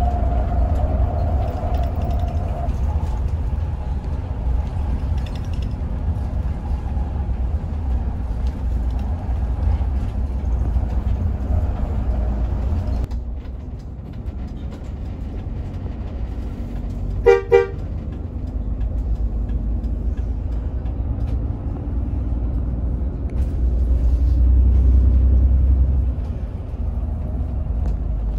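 Inside a Hino RM 280 coach on the move: a steady low drone of the rear-mounted six-cylinder diesel and road noise, swelling for a couple of seconds near the end. About two-thirds of the way through, a horn gives two short toots.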